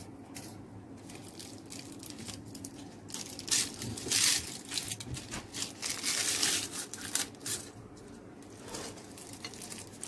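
Aluminium foil crinkling and tearing in irregular crackles as fingers peel it away from around a baked cake, loudest a little past the middle.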